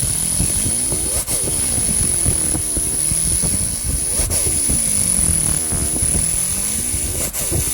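Pulsed laser cleaner ablating rust from a metal bell: a steady high whine over a crackling buzz whose pitch sweeps down and back up as the scan pattern grows and shrinks. A brief click marks the start of each cycle, about every three seconds.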